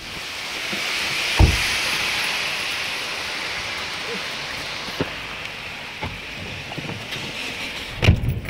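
Heavy rain and floodwater rushing along a street gutter, a steady loud hiss, with a few short knocks at about one and a half, five and eight seconds in.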